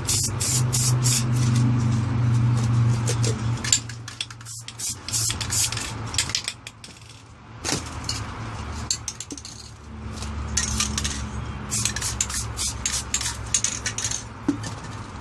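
Aerosol spray paint cans spraying in many short, repeated bursts of hiss. A low steady hum sits under the first few seconds.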